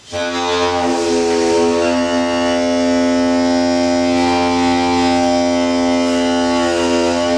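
Homemade membrane horn: a stretched balloon membrane on a tube over the end of a long PVC pipe, blown to sound one long, steady, horn-like note.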